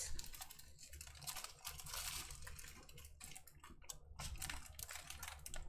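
Plastic packaging and the strip of small plastic bags of diamond-painting drills crinkling and crackling as they are handled, an irregular run of light clicks and rustles.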